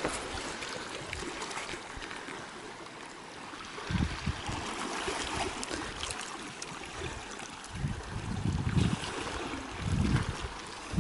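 Sea water washing and trickling among shoreline rocks and rock pools, a steady hiss. Wind buffets the microphone in low rumbling gusts about four seconds in and again several times near the end.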